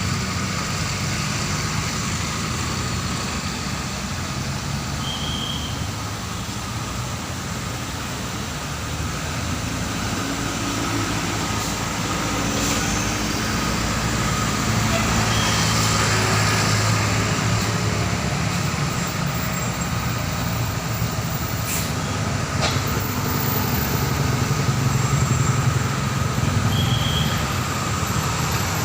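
Road traffic with heavy vehicles such as trucks and buses running and passing. A continuous engine hum swells louder around the middle and again near the end.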